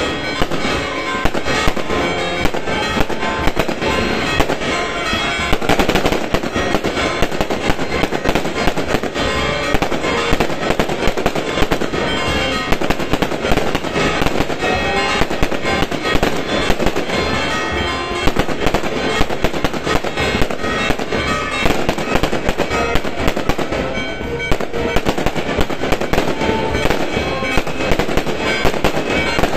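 Fireworks display: aerial shells bursting overhead in a continuous rapid barrage of bangs and crackles.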